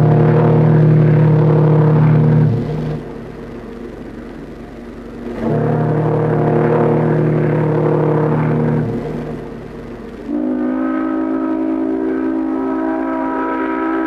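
Ocean liner's steam whistle sounding three long blasts. The first two are deep and alike; the third, starting about ten seconds in, is higher-pitched with a different tone and holds past the end.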